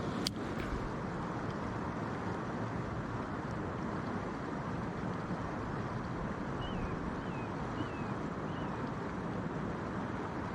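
Steady rushing outdoor noise, like wind across the microphone over lake water, with a sharp click just after the start and four short high chirps about two-thirds of the way in.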